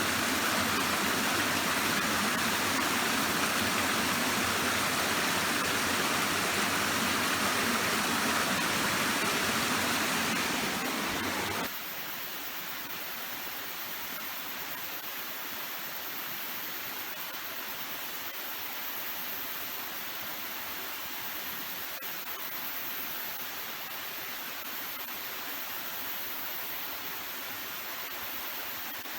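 Steady rush of running water. About twelve seconds in it cuts abruptly to a quieter, thinner rush.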